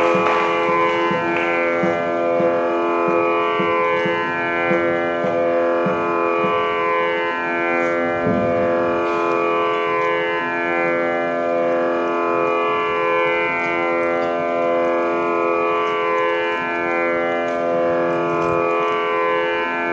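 Carnatic music in raga Latangi over a steady drone, with plucked-string notes and occasional low strokes.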